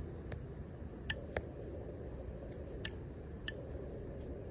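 A few light, sharp clicks from leak-detection gear being handled, over a steady low background rumble.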